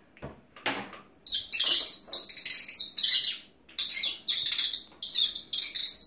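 A small brown finch calling at close range: a quick series of about seven loud, high chirps, each well under a second, beginning about a second in.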